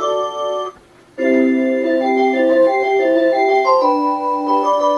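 Melody-playing clock playing a tune of held notes, several at once. The tune breaks off just under a second in, and after a short pause a new tune begins.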